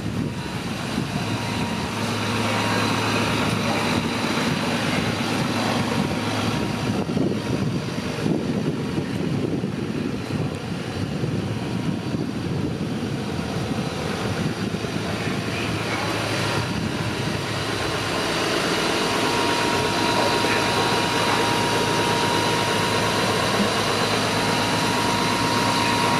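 Parked Mercedes-Benz fire engines' diesel engines running steadily, a constant hum, with a steady higher whine joining a little over two-thirds of the way through.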